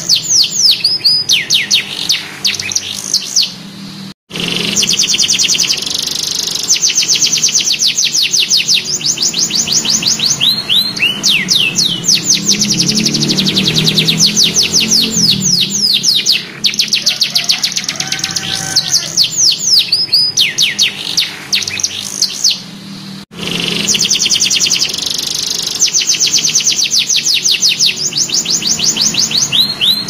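Young domestic canary singing: long, fast rolling trills of repeated notes mixed with downward-sliding whistles. The song cuts out for an instant twice, about 4 seconds and 23 seconds in.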